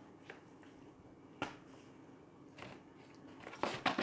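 Quiet handling of paper and a cardboard box: a few isolated light taps and clicks, then a short run of clicks and rustling near the end as the box is handled.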